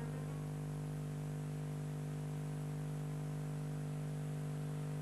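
Steady electrical mains hum with a faint hiss underneath.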